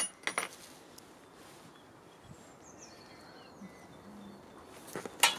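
Small metal clicks and clinks as screws, nuts and aluminium mounting hardware are handled on the back of a solar panel, at the start and again near the end. In between, faint bird chirps over quiet outdoor ambience.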